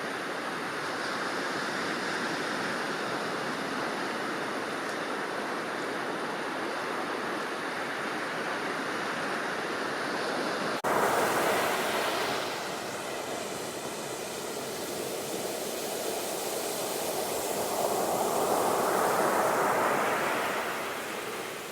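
Sea surf: a steady wash of waves. About halfway through it changes abruptly to a louder stretch where waves surge up and fall back twice.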